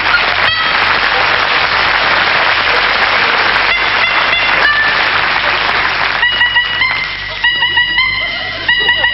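Squawky, reedy horn notes played as a quick tune, part of a classical medley played on horns. For about the first six seconds a dense noisy rush covers them, then the short notes come through clearly.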